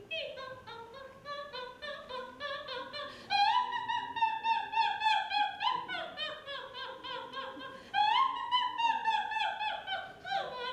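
A woman singing solo into a microphone in a bright, operatic style. She runs through quick strings of short, sliding notes and breaks into two long held high notes, about three seconds in and again about eight seconds in.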